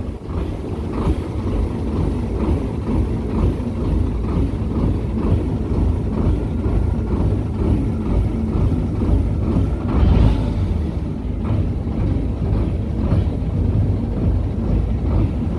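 Volvo Marine D70 seven-litre six-cylinder diesel running steadily with the boat out of the water, briefly louder about ten seconds in.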